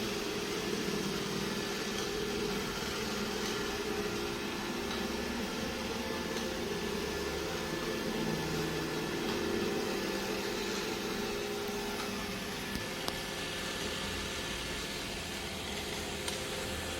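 Robot vacuum running with a steady mechanical hum, a couple of faint clicks about three quarters of the way through.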